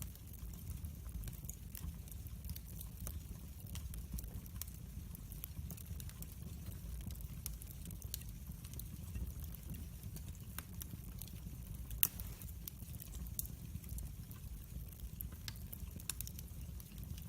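Wood fire burning in a fireplace: frequent small crackles and pops over a low steady rumble, with one louder pop about twelve seconds in.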